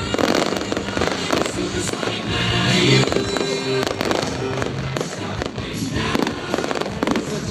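Fireworks going off in rapid succession, many sharp bangs and crackles one after another, over pop music playing.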